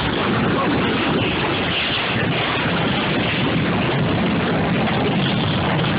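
Strong tornado wind blowing hard across the microphone: a steady, loud rush of noise.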